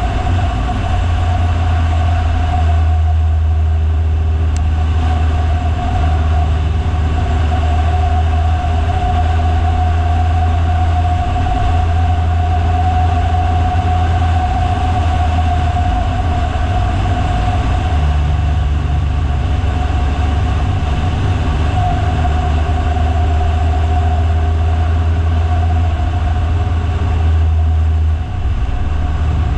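Vehicle driving, a steady low engine and road drone with a constant whine above it.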